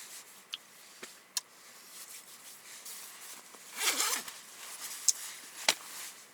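Handling noise: scattered sharp clicks and taps, with a short rustle about four seconds in.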